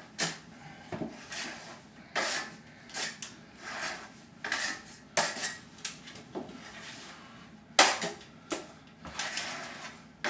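Steel drywall trowel scraping and working drywall compound (mud): a run of short, irregular scraping strokes with metallic clinks as the trowel is loaded and the mud is pressed on. The sharpest stroke comes near the end.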